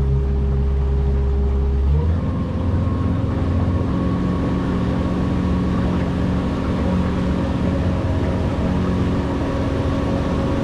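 A boat's outboard engine running steadily under way. About two seconds in its note steps up in pitch as the throttle is opened, then it holds a higher, even drone.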